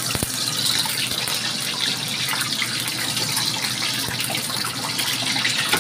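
Whole boiled chicken eggs frying in hot oil in a wok: steady sizzling with fine crackling spatter.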